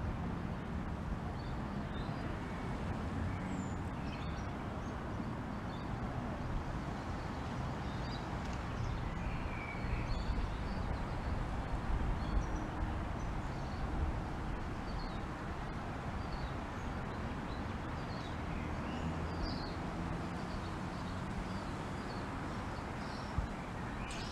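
Light rain falling steadily, with low rumbling underneath and occasional short bird chirps.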